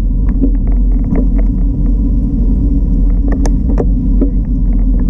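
Loud low rumble of wind buffeting a bicycle-mounted camera's microphone while riding, with scattered irregular clicks and rattles from the bike and mount.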